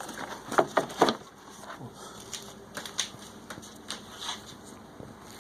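Clicks, knocks and light rattles of loosened engine-bay parts being handled and pulled off by hand, with a quick run of sharp clicks about half a second to a second in, then scattered lighter ticks.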